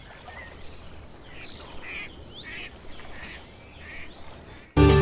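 Outdoor nature ambience: a soft hiss with a steady high insect trill and several short bird chirps. Loud electronic music starts suddenly near the end.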